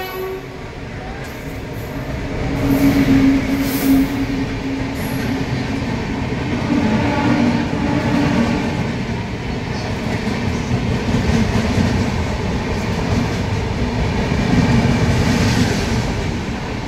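Tirupati–Kakinada Express coaches rolling out along the platform, with a steady rumble of wheels on rail and scattered clicks and clatter, heard from the open coach doorway. The sound grows louder as the train moves on.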